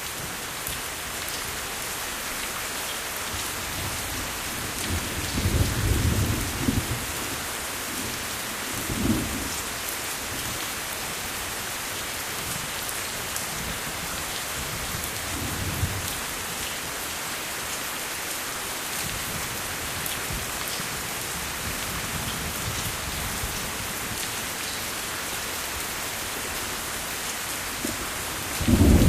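Steady rain hiss with rolls of thunder: a longer rumble about six seconds in, shorter ones a few seconds later, and a louder rumble just before the end.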